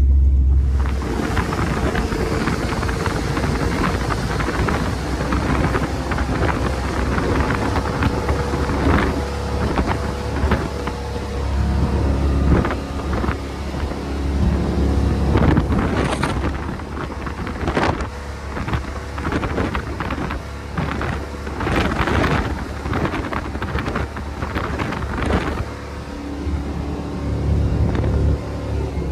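Fountain powerboat running at full throttle over open water: the engine's drone lies under heavy, gusting wind noise on the microphone.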